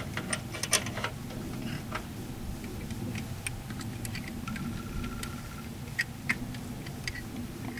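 Irregular light metallic clicks and ticks, busiest in the first second and sparser afterwards, as the lock nuts on a pole-mounted distribution transformer's lid clamp bolt are worked loose.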